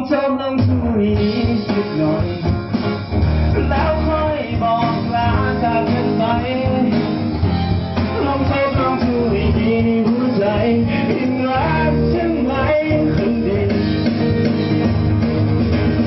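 A small live band playing a rock song: acoustic guitar, keyboard and a singer on a microphone.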